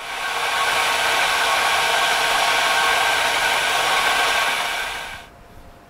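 Vertical milling machine running with a steady whir while milling a wrench flat on a steel lathe spindle adapter clamped in its vise. The sound fades in at the start and fades out about five seconds in.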